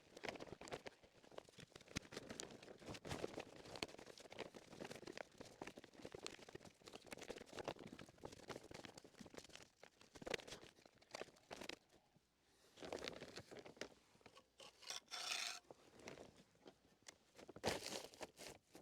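Faint rustling and scraping of a plastic sheet being worked into place along the top of a wall, with many small clicks and knocks. There is a brighter rustle about fifteen seconds in and a sharper knock near the end.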